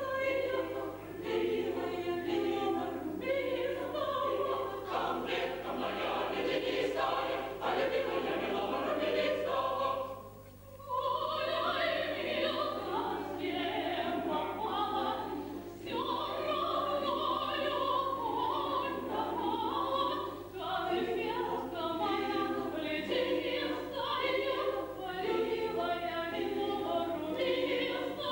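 Mixed choir of men's and women's voices singing a classical choral piece. The voices break off briefly about ten seconds in, then come back in.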